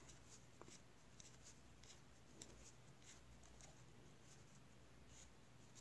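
Near silence with faint, irregular light ticks and rustles of wooden knitting needles and wool yarn as stitches are worked by hand.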